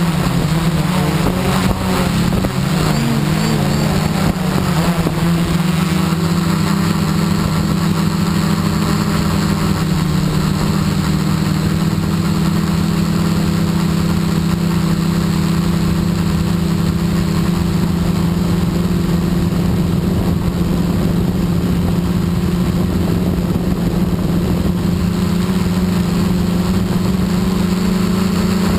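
Quadcopter's electric motors and propellers whirring loudly, heard from the camera mounted on the drone itself. A steady hum that wavers in pitch for the first few seconds, then holds steady.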